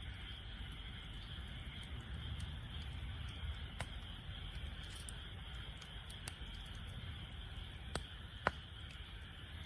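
Wood fire burning in a fire pit, a steady low rumble broken by a few sharp crackles and pops, two of them close together near the end, the second being the loudest.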